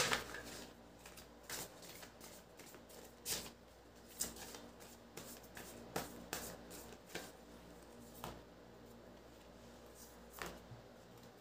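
A deck of tarot cards shuffled by hand, with a card drawn and laid onto a cloth-covered table. The card noise is faint, with scattered sharp taps and slaps about once a second and the loudest right at the start.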